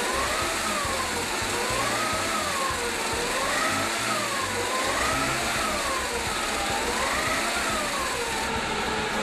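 An engine with a springless round-lobe desmodromic valve train running steadily on a test stand without its valve cover. A separate tone rises and falls smoothly about every second and a half throughout.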